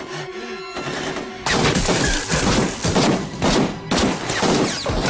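Heavy, rapid automatic gunfire with bullets striking around a mud wall. It starts suddenly about a second and a half in, after a quieter opening.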